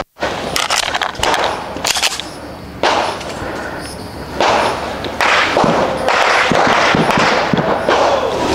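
Gunshots from elsewhere on an outdoor shooting range: several sharp reports at irregular intervals, over a steady rushing noise.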